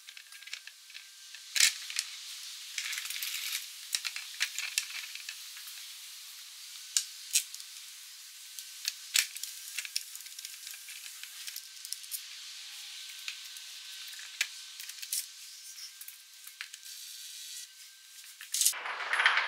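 Scattered sharp clicks and scraping over a faint hiss as a new plastic sump pan is held up against a ZF 6HP26 automatic transmission and its bolts are started by gloved hands. There is a louder rustle near the end.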